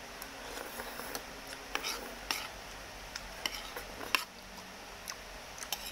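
Eating noodles: a metal fork clicking and scraping against the bowl, with slurps as strands are sucked in, in a string of short irregular clicks; the sharpest click comes about four seconds in.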